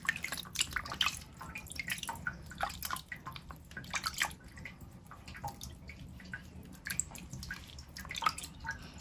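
Water splashing and dripping in small irregular splashes as hands wash a stray kitten in a basin of water.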